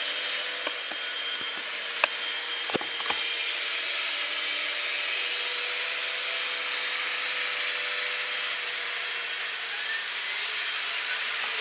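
Tractor running steadily while pulling a drag-hose-fed slurry injector across grassland, with a steady mechanical whine. A few sharp clicks and knocks sound in the first three seconds.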